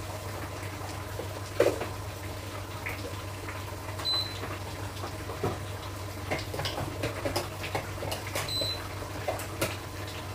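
Kitchen sounds while cooking: scattered small knocks and clinks of utensils and cookware over a steady low hum. Two short high beeps come about four seconds apart.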